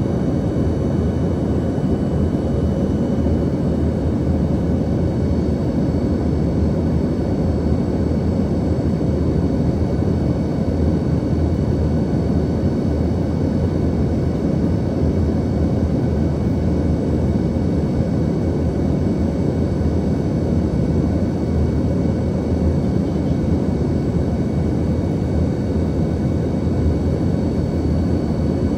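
Steady cabin noise inside an Embraer ERJ-145 regional jet: a constant rush of air and the hum of its rear-mounted Rolls-Royce AE3007 turbofans, with a faint, steady, high whine.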